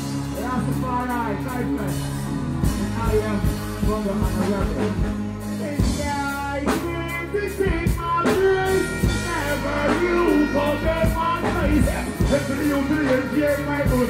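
Live dancehall performance: a man sings into a microphone through the stage PA over a backing track with a steady bass line and regular drum hits.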